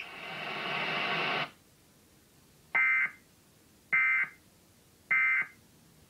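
Emergency Alert System end-of-message code: three short, identical bursts of high-pitched digital data tone, about a second apart, marking the end of the test tornado warning broadcast. Before them a hiss swells and cuts off about a second and a half in.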